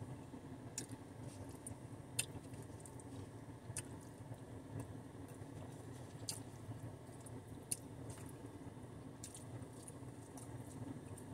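A person chewing food with the mouth closed, with wet mouth sounds and a soft click every second or so, over a faint low hum.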